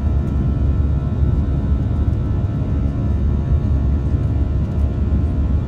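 Airbus A340-300's CFM56-5C turbofan engines during the climb after take-off, heard from inside the cabin: a steady low rumble with a droning hum of fan tones over it.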